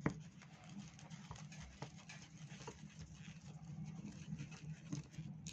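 Faint small clicks of a screwdriver and metal carburetor parts being handled as the idle-speed screw is unscrewed from a small two-stroke scooter carburetor, over a faint low hum.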